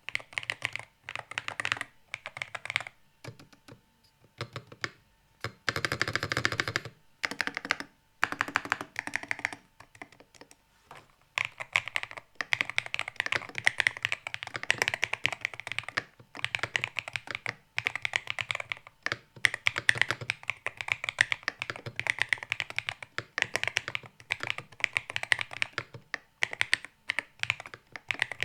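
Typing on an Aula Hero 68 HE keyboard with magnetic switches and a plastic case: runs of quick key clacks with a couple of short pauses, then steady typing from about halfway through. The stabilizers are unlubed and tick.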